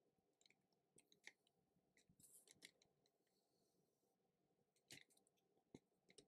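Near silence, with a few faint, scattered clicks and taps of a stylus on a tablet screen as lines are drawn.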